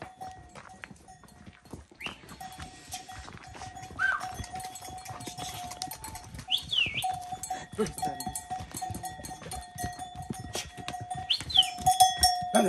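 Bells on livestock ringing steadily, with many quick clicks and a few high sliding calls over them.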